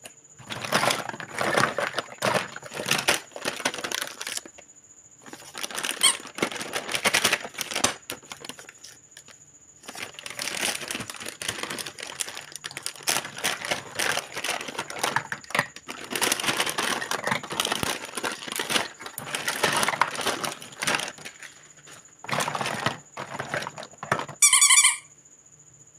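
Plastic toy kitchen pieces being handled and sorted: plastic clattering, rattling and squeaking against other plastic in bursts, with short pauses. Near the end comes one brief high tone.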